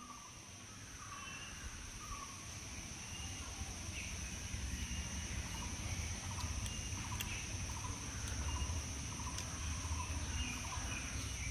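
Outdoor ambience: a steady high-pitched insect drone, with short bird calls scattered through it and a faint low rumble underneath.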